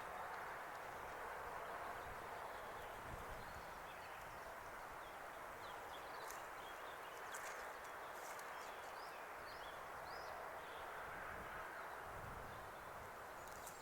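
Small birds chirping over a faint, steady rushing background, with a few low gusts of wind on the microphone.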